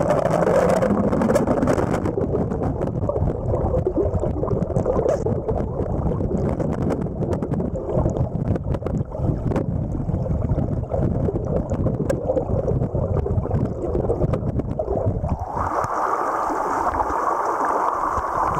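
Muffled rushing of river current over a rocky shoal, heard with the camera held underwater, with scattered faint clicks. About fifteen seconds in the camera comes out of the water and the sound opens up into the brighter hiss of the rapids in open air.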